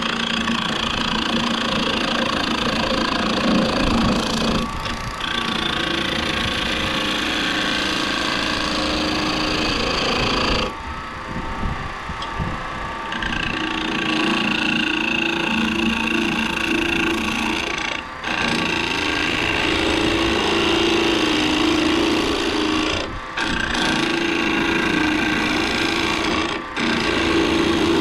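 Wood lathe running with a skew chisel cutting along a spinning oak spindle: a steady hiss of shaving mixed with a humming tone. The sound dips briefly a few times along the way.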